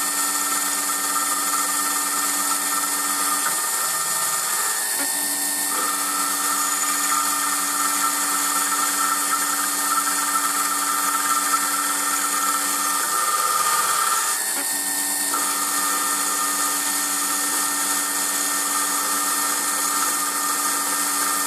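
Emco Compact 5 CNC lathe running a programmed boring cycle, taking light 0.2 mm cuts in 6082-T6 aluminium with the spindle at about 1200 RPM. A steady whine whose tone changes briefly twice, about ten seconds apart.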